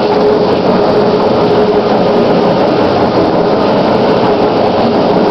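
Large metal-turning lathe running, turning a large-diameter metal part: a steady machine noise with one constant tone held through it.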